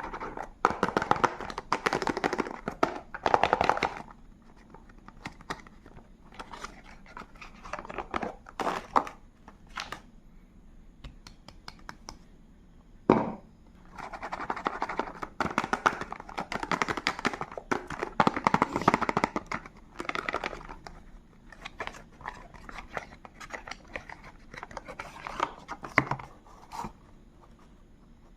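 Soap packaging being unwrapped by hand: wrappers crinkling and tearing in irregular bursts, with sharp clicks and taps between them.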